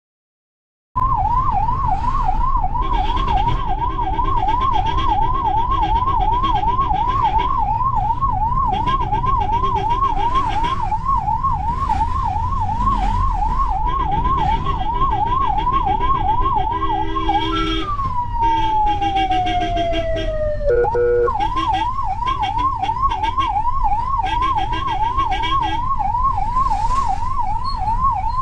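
Ambulance electronic siren in a fast warble, about three rises a second, heard from inside the ambulance's cab over engine and road rumble; it starts about a second in. Near the seventeen-second mark it drops into one long falling wail and a few short stepped tones, then the fast warble resumes; longer steady tones come and go over it at intervals.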